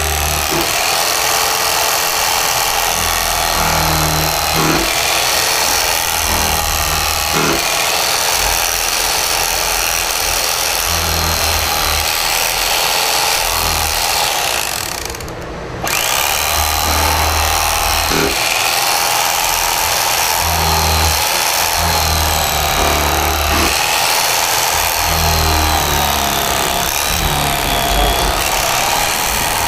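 Electric carving knife running as it saws through smoked pork ribs. It is steady throughout, except for a brief stop about halfway through.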